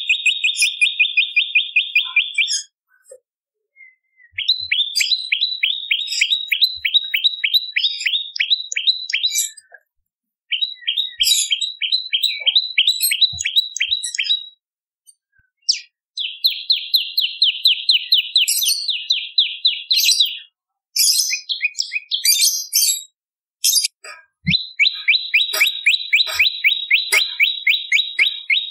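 Prenjak lumut (a tailorbird) calling in fast, high trills of short, sharp notes, about ten a second, each note sliding down slightly. The trills come in bursts of a few seconds with brief pauses, and scattered higher chips fall between them.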